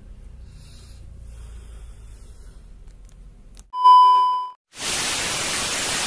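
Television test-pattern beep: a loud, steady single high tone lasting just under a second, followed after a short gap by loud TV static hiss. Before it, only a faint low hum.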